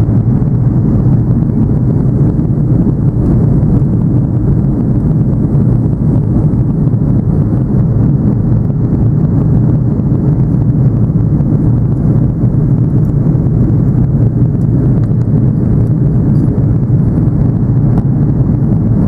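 Steady, loud cabin noise inside an Airbus A330-200 in flight: an even, low rumble of the engines and the air rushing past the fuselage.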